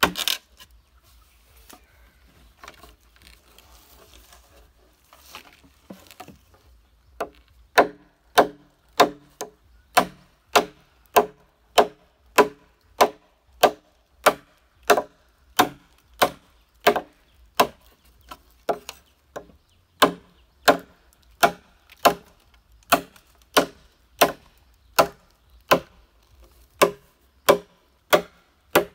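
A blade chopping into a thick green bamboo culm to cut a notch. After one loud stroke at the start and a few seconds of only faint tapping, steady chopping starts about seven seconds in, at roughly two strokes a second.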